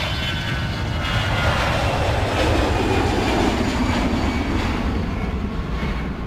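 Jet airliner taking off, its turbofan engines at takeoff power: a continuous jet rush with a faint high whine. It swells to its loudest two to four seconds in, falls in pitch as it passes, and eases off near the end.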